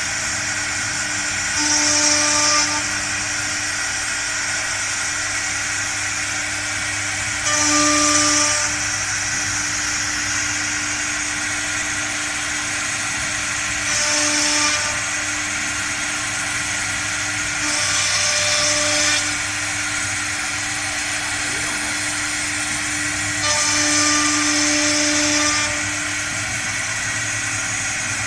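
STARMA 1325 three-spindle CNC router's spindle whining steadily as its bit cuts a fibreboard sheet. Louder, hissier stretches of a second or two come every five or six seconds.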